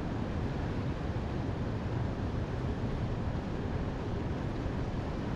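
Steady low rumbling noise of wind on the microphone, even throughout with no distinct events.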